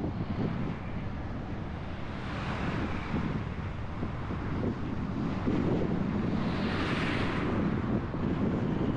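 Road noise from a car driving through city traffic: a steady low rumble of tyres and engine with wind buffeting the microphone. A higher hiss swells twice, once about two seconds in and again about seven seconds in.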